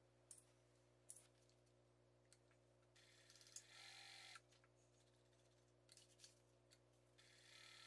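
Near silence: faint room tone with a low steady hum, a few faint clicks and a soft hiss about three seconds in and again near the end.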